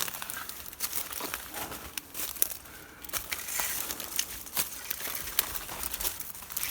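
Footsteps crunching through dry leaf litter and twigs, with many irregular sharp crackles and a rustling of scrub.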